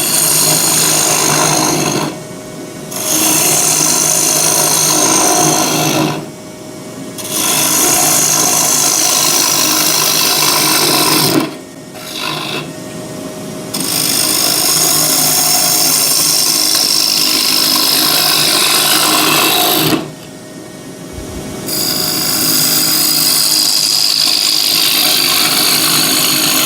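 Gouge cutting into a spinning tulipwood blank on a wood lathe, hollowing out a small bowl: a continuous scraping hiss over the lathe's hum, in long passes broken by brief pauses four times. A high whistling tone slowly falls in pitch during the later passes.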